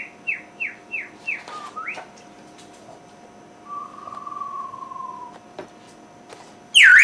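African Grey parrot whistling: a quick run of about six falling notes, a short rising whistle, then a long low whistle. It ends in one loud whistle that dips and rises again.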